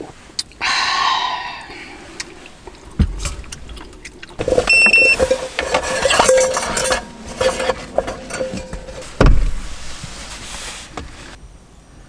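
Clinks, knocks and rustling of dishes and food containers being handled on a small table, with two dull thumps about three and nine seconds in and a short electronic beep around five seconds in.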